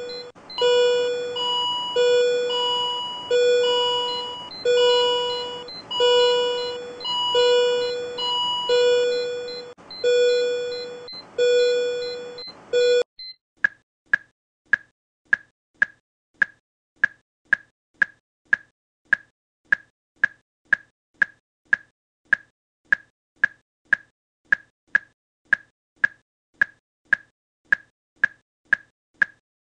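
Electronic alert tone from a simulated cardiac monitor-defibrillator charged to 300 joules: a multi-note chime repeating about every second and a quarter, signalling it is charged and ready to shock. It stops abruptly about 13 seconds in, and short single-pitch monitor beeps follow at about two and a half a second, in time with a heart rate of 150.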